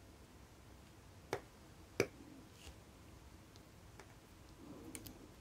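A few faint, sharp clicks of a small watchmaker's screwdriver working the screws of a watch movement as they are tightened. The two loudest come about a second and a half and two seconds in, with a soft rustle and a quick double click near the end.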